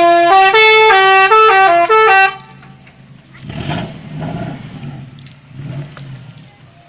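Telolet musical horn on a customised Colt playing a quick multi-note tune, stepping up and down between a few pitches for about two seconds, then cutting off. About three and a half seconds in there is a shorter, softer rush of noise over a low steady hum.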